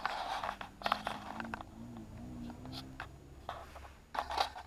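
A homemade wooden cutlery drawer being handled and slid under a worktop: wood scraping and a few sharp knocks, strongest at the start, about a second in and near the end. A quiet, wavering low hum runs under the middle of it.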